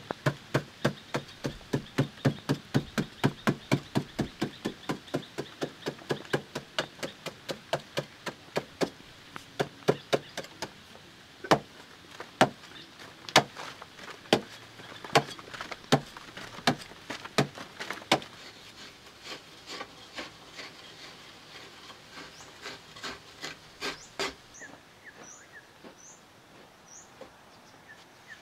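A long-handled digging tool chopping into hard-packed clay earth, struck about two to three times a second at first, then in slower, heavier blows about a second and a half apart, fading to lighter strikes. Near the end the chopping stops and a bird gives a few short falling chirps.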